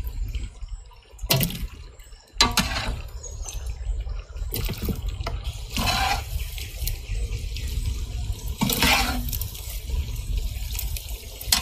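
Water sloshing and splashing as sliced potatoes are stirred and washed in a large pot, about five splashes a second or two apart over a low steady rumble.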